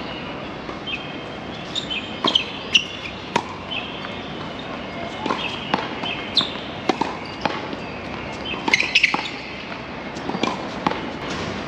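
Tennis balls being hit and bouncing during play: a string of sharp racket strikes and court bounces at uneven intervals, with a quick cluster of knocks about three quarters of the way in.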